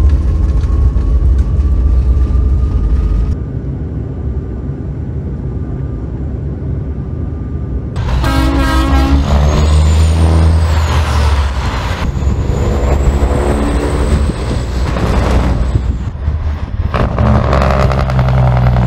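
Jet airliner rumbling on the runway just after landing, with a slowly rising engine tone. About eight seconds in this gives way to semi trucks: several air-horn blasts over the rumble of big-rig diesel engines.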